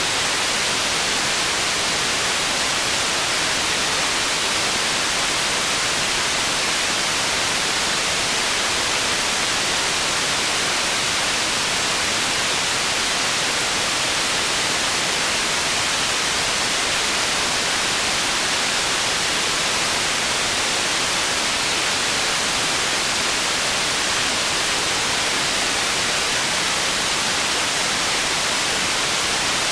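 Steady processed white noise for tinnitus masking: an even, unbroken hiss weighted toward the high end, with little bass.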